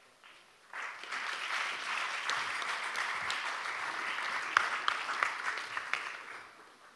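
Audience applauding, starting about a second in and dying away near the end, with a few sharper single claps standing out.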